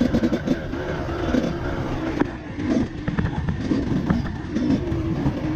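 Dirt bike engine revving unevenly, the pitch rising and falling in short blips of throttle, with several sharp knocks along the way.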